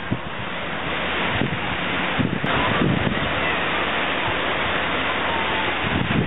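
Wind buffeting the camera's microphone: a steady rushing noise with uneven low rumbles from the gusts.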